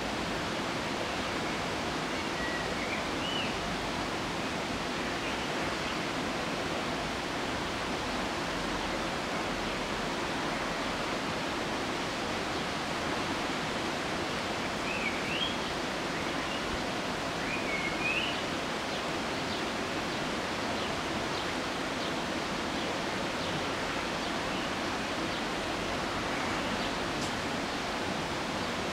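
Steady rushing outdoor noise with no clear source, and a few short high chirps about three seconds in and twice more between fifteen and eighteen seconds.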